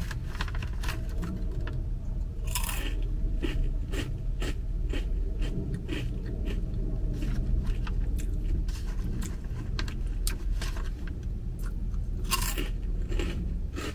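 Crunchy lentil-and-rice snack rings being bitten and chewed: a run of small crisp crunches, with a couple of louder bites.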